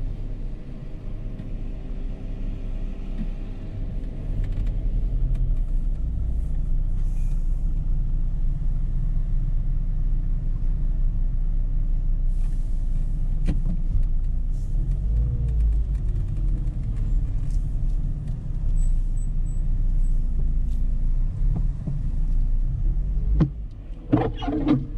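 Dodge Charger's 3.5-litre V6 car driving, a steady low rumble of engine and road noise. A faint tone rises and falls in pitch about midway, and a short cluster of sharp clicks comes near the end.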